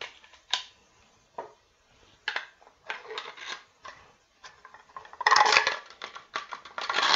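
Parts of an MTs 21-12 semi-automatic shotgun clicking and scraping as it is put back together by hand. Scattered single clicks run through, with two longer, louder spells of scraping and rattling, one about five seconds in and one near the end.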